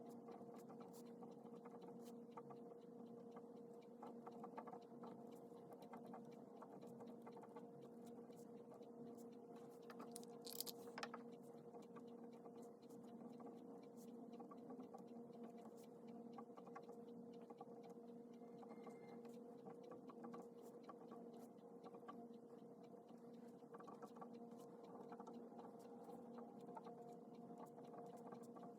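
Faint scratching and tapping of a pen writing on paper, over a steady low hum; a brief louder rustle about ten seconds in.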